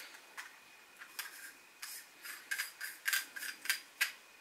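Carl Zeiss Tessar 50mm f/2.8 lens being screwed into an M42 adapter ring by hand: metal-on-metal scraping and clicking of the threads, a run of short irregular clicks and scrapes that come thicker near the end.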